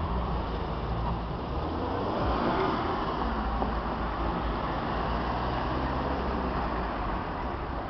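Road traffic: cars driving past on wet asphalt, a steady low rumble with a swell about two seconds in.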